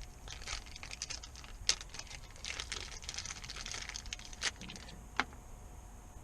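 Small metal AN fitting adapters being handled, giving a quick irregular run of light clicks and taps, with a few sharper knocks.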